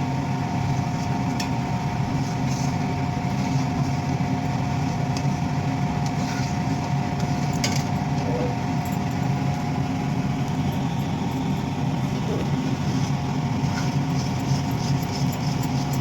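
Steady machine hum with two faint held tones above it.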